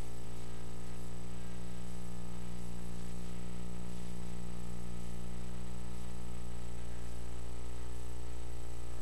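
Steady electrical buzz: a mains hum with many even overtones, unchanging throughout, carried on the broadcast audio feed.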